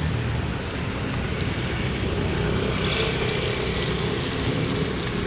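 Steady street traffic noise: vehicle engines running on a city road, with no single event standing out.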